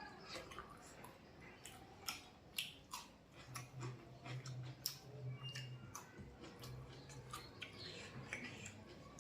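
A person eating: chewing with scattered small wet clicks and smacks, irregularly spaced. A faint low hum comes in for a few seconds in the middle.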